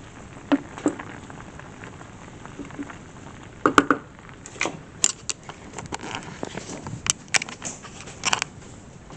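Household handling noise: a scattered series of sharp knocks and clicks, with the loudest cluster of knocks about four seconds in.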